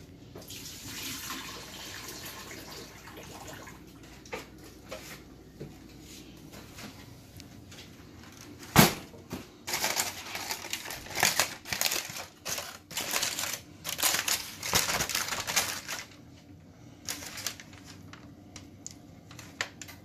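Cooking juices pouring off a foil-wrapped pan of baby back ribs into a sink, then a single sharp knock just before nine seconds in, followed by aluminium foil crinkling in repeated bursts as the foil packet is opened.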